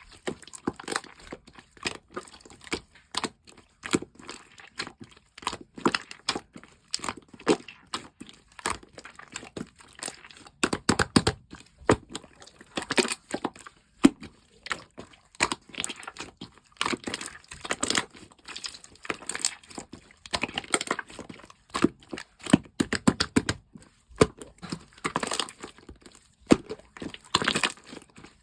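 Green marbled slime being squished and stretched by hand, giving irregular sticky clicks and crackles.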